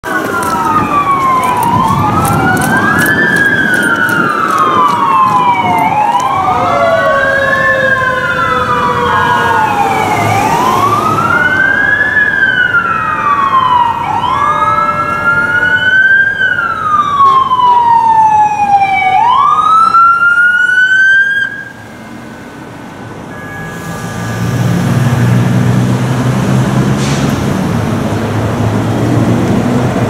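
Emergency vehicle siren wailing, its pitch rising quickly and falling slowly every three to four seconds, with a second siren overlapping at first; it cuts off suddenly a little past twenty seconds in. A few seconds later a large truck's engine comes in with a steady low rumble.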